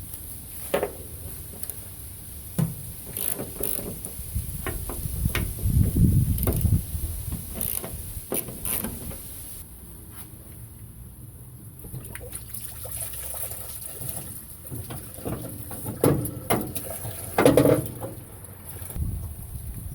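Scattered clicks, knocks and rattles of hand work on a truck body, with a louder low rushing noise about six seconds in and a cluster of sharp knocks near the end.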